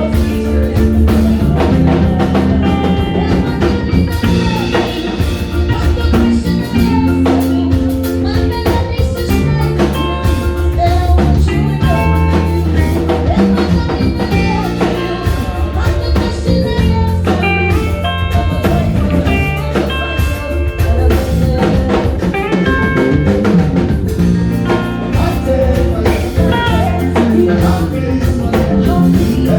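A band playing a blues-rock number on drum kit and guitar.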